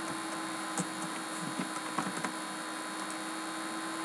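Steady electrical hum with a faint hiss, and a few faint clicks about a second and two seconds in.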